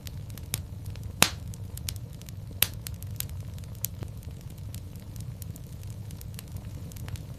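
Wood fire in a fireplace crackling: a steady low rumble under many scattered snaps and pops, the two loudest about a second in and about two and a half seconds in.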